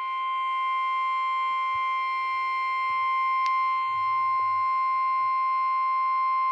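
NOAA Weather Radio 1050 Hz warning alarm tone: a single steady electronic tone held at one pitch, the alert that signals a warning broadcast is about to follow.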